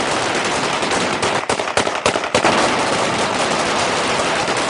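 Celebratory gunfire: several automatic weapons fired into the air in overlapping bursts, making a dense, almost unbroken crackle of shots with a few short breaks in the middle.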